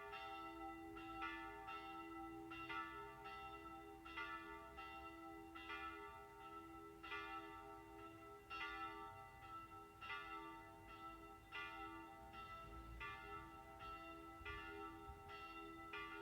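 Church bells ringing to call people to prayer, heard faintly: a steady run of strikes, roughly one every 0.7 seconds, each ringing on over the last.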